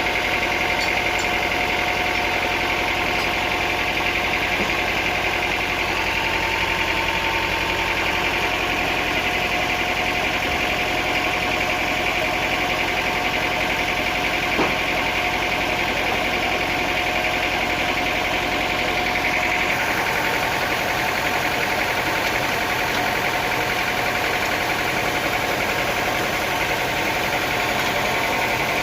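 Sawmill machinery running steadily: an engine drone with a constant whine, whose tone shifts slightly about twenty seconds in.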